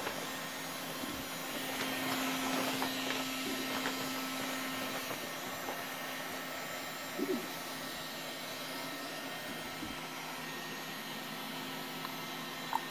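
Electric heat gun blowing over fresh epoxy to pop its bubbles: a steady rushing hiss with a low, even hum.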